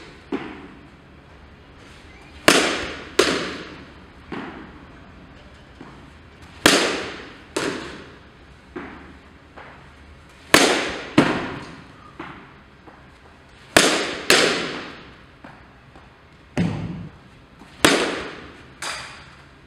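Softball bat striking front-tossed softballs, about five loud sharp cracks with a second sharp impact following each about half a second later, each echoing away in a large indoor hall. Weaker knocks fall between the hits.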